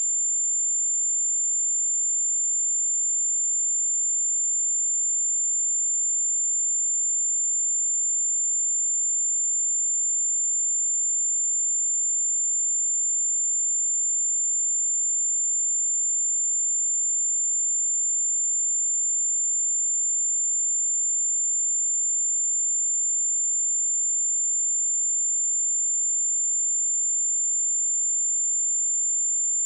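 A single steady 7226 Hz sine-wave test tone, one pure high-pitched note held at constant level throughout.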